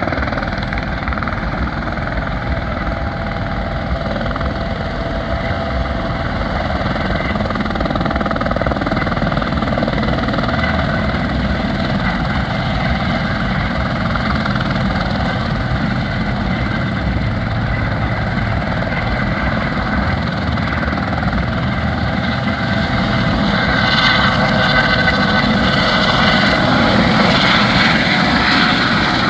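Helicopter engine and rotor running steadily on the pad, growing louder about five seconds from the end as it lifts off and departs.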